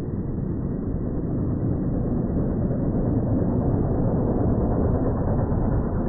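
Outdoor ambient sound slowed down eight times, heard as a steady low rumble with no distinct events, growing slightly louder.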